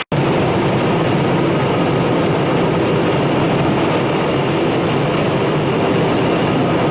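A fire truck's heavy engine running steadily, a loud even drone with a low hum.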